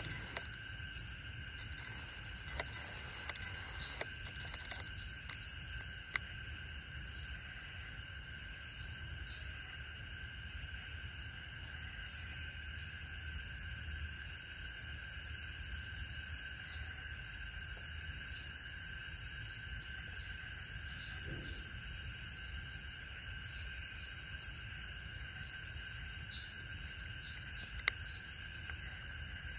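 Night insect chorus: crickets and other insects trilling steadily at several high pitches, the highest in rapid even pulses and another in short repeated bursts, with a few faint clicks now and then.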